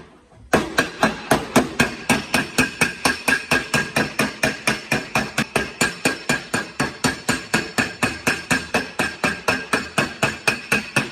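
Body hammer beating rapidly and evenly on a Tesla Model S body panel, about four to five blows a second, each with a short metallic ring, as dented bodywork is worked back into shape.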